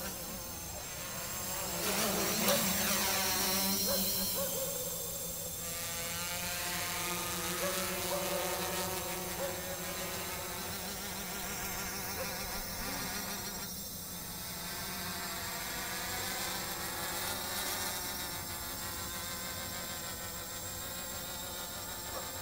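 Quadcopter's propellers and motors buzzing as it hovers and manoeuvres, the pitch wavering up and down as the motor speeds change. It is a little louder about two to four seconds in.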